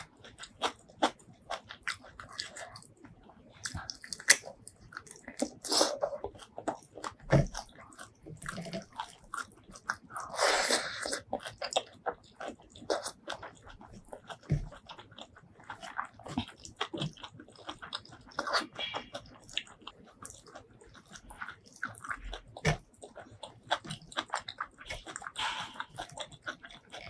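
Close-miked eating: a person chewing and biting food, with wet mouth clicks and crunches coming irregularly, and a longer, noisier stretch about ten seconds in.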